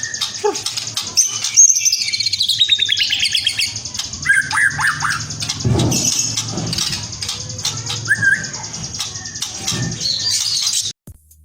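White-rumped shama (murai batu) singing a varied song of whistles and trills, including a fast falling trill about two seconds in, over a steady high hiss; the song cuts off suddenly near the end.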